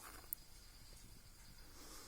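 Near silence: faint room tone, with one small click about a third of a second in.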